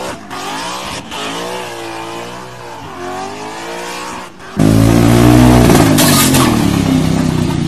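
A car engine held at high revs during a burnout, its pitch rising and falling as the throttle is worked. About four and a half seconds in, it cuts abruptly to a much louder, rougher engine sound.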